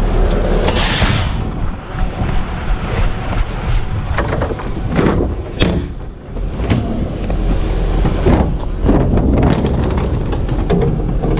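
Rear-loader garbage truck's diesel engine running steadily, with a burst of hiss about a second in. Over it come scattered knocks and thuds of plastic wheeled trash carts being grabbed and rolled.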